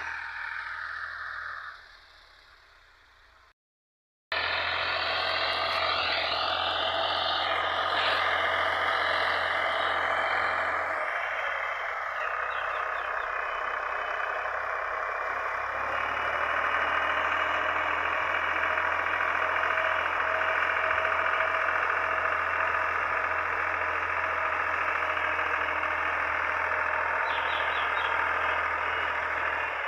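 Tractor diesel engine running steadily under load as it pulls a tined cultivator through ploughed soil. The sound drops away about two seconds in, breaks off for a moment, then comes back and runs on evenly.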